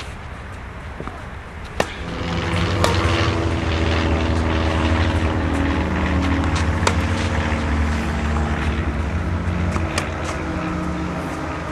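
Tennis balls struck by racket strings in a rally, sharp pops a few seconds apart. Under them a steady engine drone with a low hum comes in about two seconds in and is the loudest sound.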